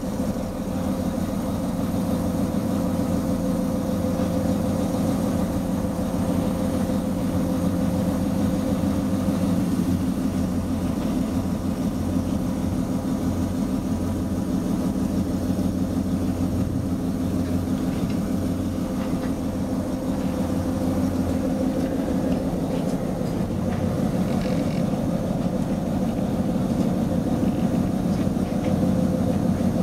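Diesel locomotive engine running steadily, heard from inside the cab as the locomotive moves slowly along the yard; the engine note shifts slightly about two-thirds of the way through.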